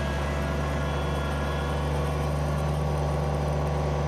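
Diesel engine of a Kubota BX subcompact tractor, a three-cylinder, running steadily at an even speed as the tractor drives along.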